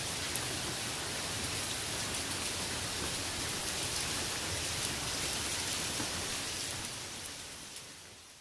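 Heavy rain falling steadily as an even hiss, fading away over the last second or so.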